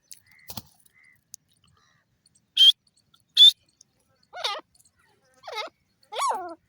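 Francolin (teetar) calling: two short, sharp high chirps about halfway through, then three lower warbling calls about a second apart near the end.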